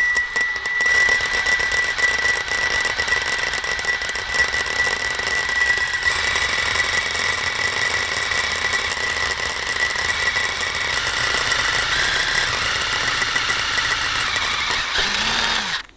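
Drill cutting a 5/32-inch hole through stainless steel plate: a steady grinding with a high squeal from the bit, its pitch shifting slightly a few times. It stops suddenly near the end.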